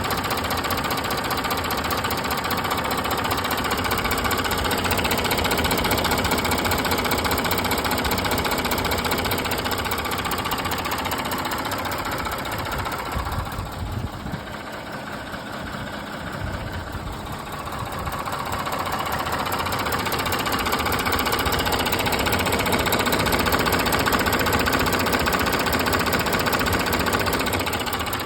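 Audi Q7 (4M, 2016) engine running at a steady idle with a fast, steady knocking from the top of the engine, which the owner takes for camshaft knock at about 200,000 km. It gets quieter for a few seconds in the middle, then returns.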